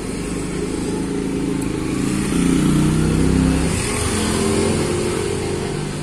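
A motor vehicle's engine drone that swells to its loudest around the middle and fades towards the end, like a car or motorcycle passing by.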